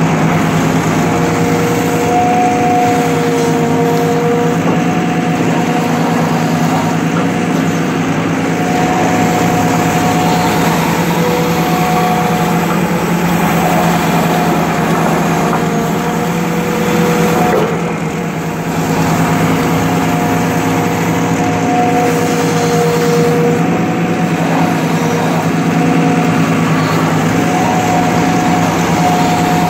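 Excavator engine running steadily under load, with a whine that comes and goes as the bucket is worked.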